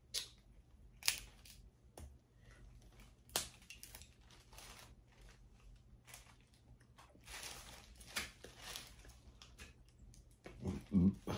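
Seafood shells being cracked and peeled by hand close to the microphone, with a few sharp snaps, crinkling and some chewing. A short, louder low murmur comes near the end.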